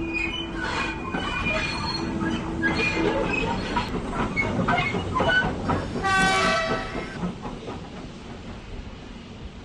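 HO-scale model trains running on the layout's track: a steady rumble and rattle of small wheels over rail joints and points, with scattered squeals. A short horn note sounds about six seconds in.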